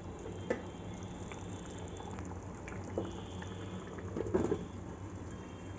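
Besan fulki curry gravy simmering in a pot with faint bubbling over a steady low hum. About four seconds in, a glass lid is set on the pot with a short knock.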